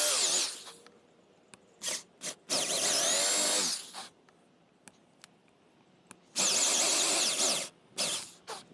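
Power drill boring into wood to rough out a recess for a clock motor, run in three bursts of about a second each with a few short trigger blips between, its pitch wavering as the bit loads in the wood.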